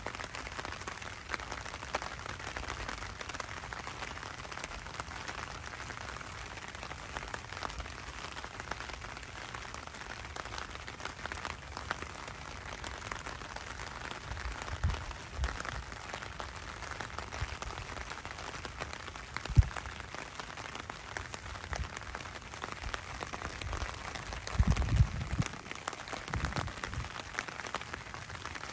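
Steady rain falling and pattering, full of tiny drop ticks. A few low thumps come about halfway through, with one sharp knock shortly after and a cluster of louder low thumps near the end.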